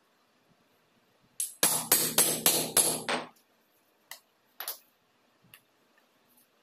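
A metal hand tool worked against the edge of a foam-rubber slipper sole on a board: a quick run of about six strokes lasting about a second and a half, with a thin high ring. Two light knocks follow.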